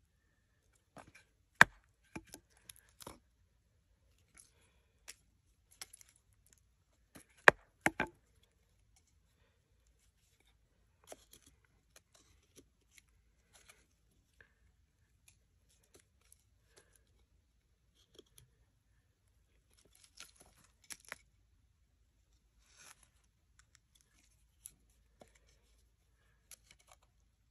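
A puukko-style bushcraft knife carving a pell notch into a wooden stick: scattered short cuts and scrapes. A sharp knock comes about one and a half seconds in, and two louder ones come around seven and a half to eight seconds.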